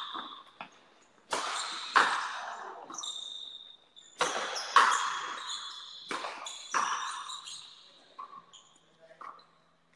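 Frontenis rally: a hard rubber ball struck by strung racquets and smacking off the concrete fronton wall. The smacks are sharp and often come two in quick succession, about half a second apart, each with an echoing tail.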